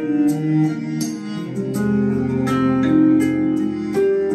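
Instrumental music played back over Wharfedale Linton 85th bookshelf speakers driven by a Marantz Model 60N amplifier. Sustained pitched notes change every half second or so over light ticks at a steady beat.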